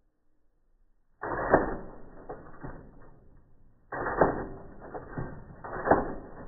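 Manual typewriter keys and typebars striking, slowed down into drawn-out, deep clacks and clunks. The clatter starts suddenly about a second in, pauses briefly just past the middle, then carries on with more strikes.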